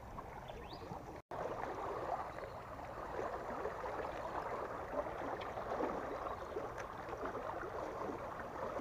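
Steady rushing and gurgling of water churning through a river sluice gate. A quieter first second ends in a brief dropout, and the flow noise then runs on evenly.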